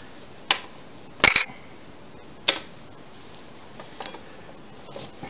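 Metal knitting needles clicking and knocking as the knitting is handled: four sharp clicks, the loudest a double knock a little over a second in.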